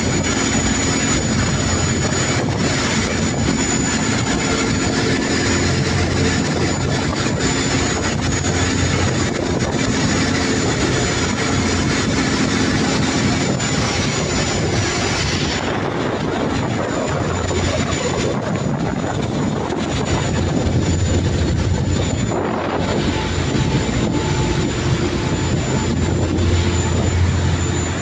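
Motor yacht under way at speed: steady engine drone beneath a loud rush of spray and water along the hull, with wind. The hiss eases a little about halfway through.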